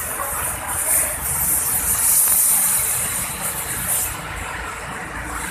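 A coach bus engine running, with repeated bursts of high air hiss from its air system through the first four seconds, easing off after that. No telolet horn is sounding.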